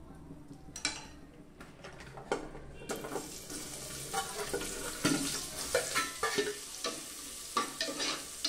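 Hot oil in an aluminium pressure cooker sizzling as whole spices and then sliced onions and green chilli go in. A few light clicks come first, a steady sizzle starts about three seconds in, and a metal slotted spoon scrapes and knocks against the pot as the onions are stirred.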